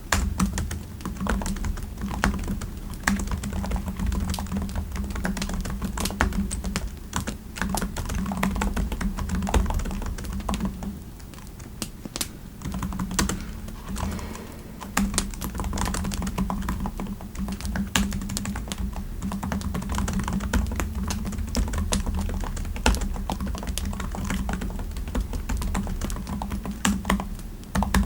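Typing on a computer keyboard: a steady run of keystrokes that thins out for a few seconds near the middle, over a low steady background rumble.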